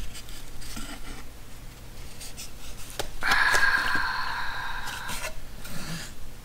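Cardboard camera packaging being handled and opened, with light rubs and taps. About three seconds in comes a drawn-out squeaky scrape, lasting about two seconds, as packaging parts slide against each other.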